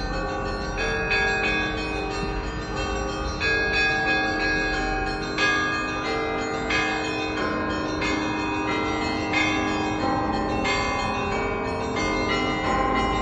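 Bells of St. Isaac's Cathedral, a Russian Orthodox cathedral, pealing to call the faithful to the evening service: several bells of different pitch struck in quick succession, their tones overlapping and ringing on.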